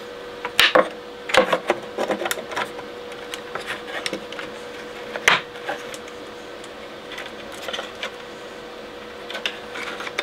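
Irregular clicks, knocks and rattles of circuit boards, wiring and fittings being handled and seated inside a wooden stereogram cabinet during reassembly, with the loudest knocks about half a second, a second and a half and five seconds in. A steady faint hum runs underneath.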